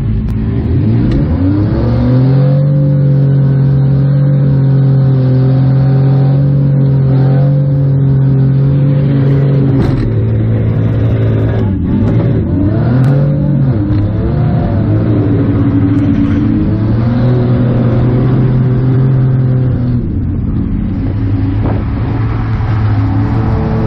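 Demolition-derby minivan's engine heard from inside its stripped cabin, revving up about two seconds in and held at high revs, dropping and revving up and down again around the middle, then held high once more before falling away near the end.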